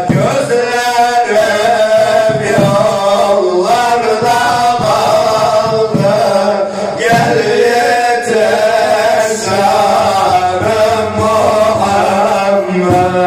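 A man singing a Turkish Sufi ilahi (devotional hymn) solo into a microphone, a slow chanted line of long, wavering, ornamented notes.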